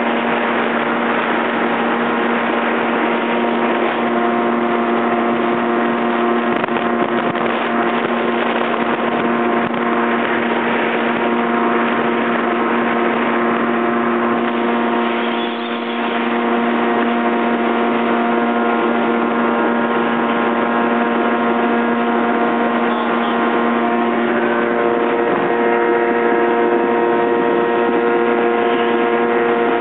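Yamaha jet ski engine running at speed: a steady droning whine over a dense rush of noise, dipping briefly about halfway through.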